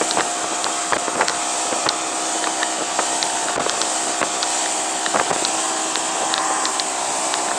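Motorboat under way: a loud, steady engine tone over a rushing noise, with scattered small clicks and knocks.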